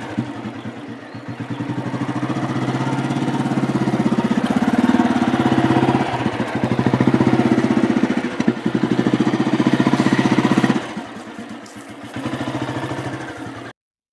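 Motorcycle engine running with a quick, even beat as it rides along. It gets quieter about eleven seconds in and settles lower as the bike slows, then cuts off abruptly near the end.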